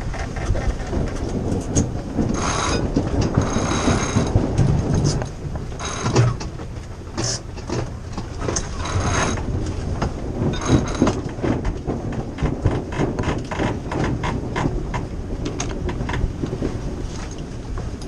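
Sailboat sheet winch being worked as a sail is sheeted in during a tack, its pawls clicking in quick runs as the line is hauled around the drum. There are a few longer rushes of noise in the first half.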